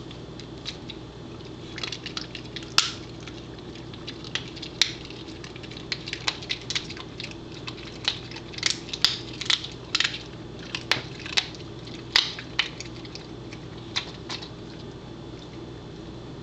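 A Pembroke Welsh Corgi chewing a beef tendon treat: a string of irregular, sharp crunches and clicks, most frequent in the middle stretch.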